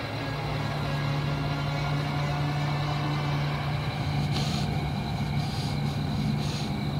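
A vehicle engine idling steadily, a low hum. Two brief rustling sounds come about four and a half and six and a half seconds in.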